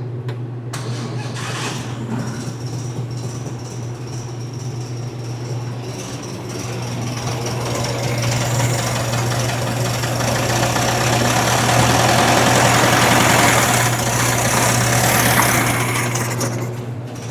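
1961 VW Beetle's air-cooled flat-four engine running cold on its first test run, speeding up and getting louder about halfway through, then dropping back near the end.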